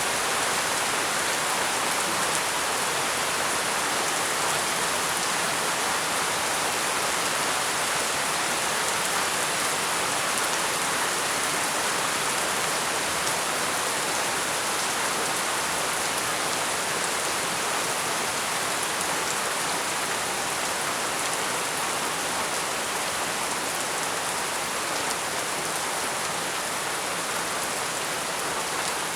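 Heavy rain falling steadily, a continuous even hiss of drops on surfaces.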